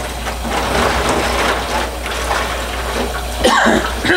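Kitchen faucet running steadily into a sink, the stream splashing over a skinned squirrel carcass being rinsed in gloved hands, with a few louder splashes near the end.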